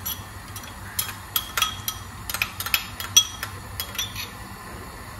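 Metal kitchen utensils clinking against cookware: a run of sharp, ringing taps, thickest between about one and four seconds in, over a low steady hum.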